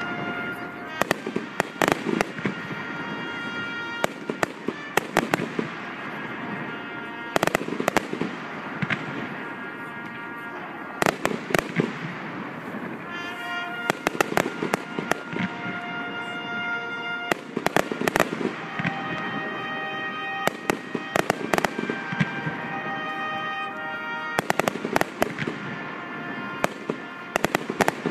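Aerial fireworks shells bursting in rapid volleys of sharp bangs and crackle during a finale, with music playing underneath throughout.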